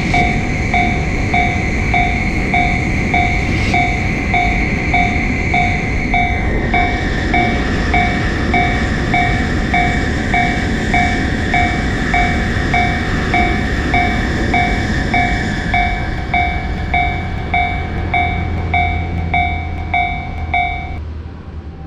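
Japanese level-crossing alarm bell ringing its repeated 'kan-kan' about twice a second, over the steady rumble of a passing train. The train noise eases off in the last few seconds, and the bell stops just before the end.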